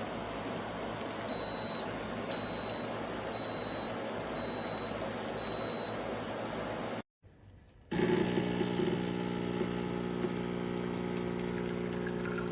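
KEENSTAR espresso machine beeping five times, short high beeps about a second apart. After a brief break the machine runs with a steady electric hum.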